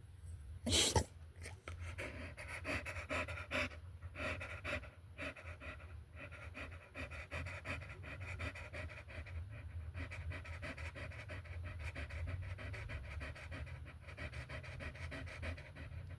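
Dog panting, fast and steady. A short, loud burst of noise comes about a second in.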